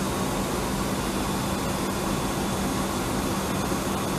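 Steady rush of air-conditioning airflow with a low, even hum in the cockpit of an Embraer 175 whose cabin is pressurized on the ground.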